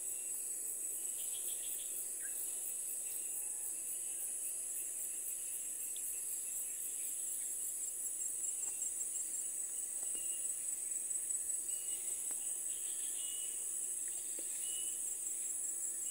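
Steady, high-pitched chorus of forest insects, a fast pulsing trill that never lets up, with a few faint short chirps now and then.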